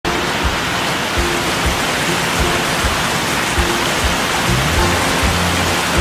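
Steady rush of water falling down a wide, many-tiered rock cascade, with quiet background music of low sustained notes under it.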